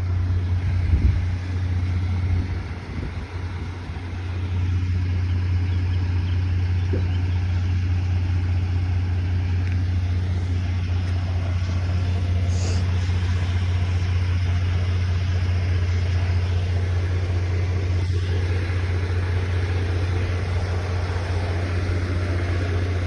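Vehicle engine running steadily with a constant low hum, after an uneven first few seconds.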